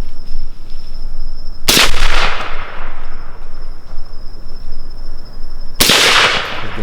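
Two rifle shots about four seconds apart, each with a long fading echo. A steady insect trill runs between them.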